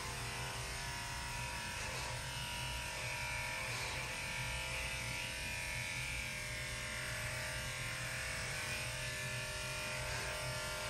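Electric dog-grooming clippers running with a steady hum while clipping a Shih Tzu's coat.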